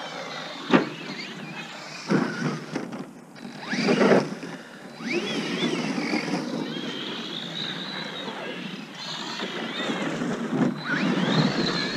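Electric RC monster truck's motor whining, its pitch rising and falling as the throttle is worked while the truck spins donuts in the snow, with a couple of short knocks.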